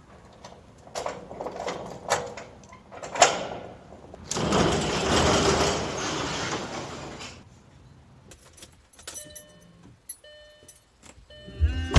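Keys jangling and clicking at a padlock on a steel roll-up storage door, then the corrugated door rattling for about three seconds as it rolls up. A few small clicks follow, and near the end music comes on loudly.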